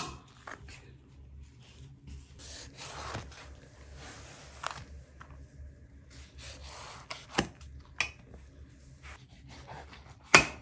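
Kitchen knife cutting through a baked pumpkin's rind and its segments being pulled apart on a metal tray: soft scraping and cutting noises, with several sharp knocks, the loudest at the very start and just before the end.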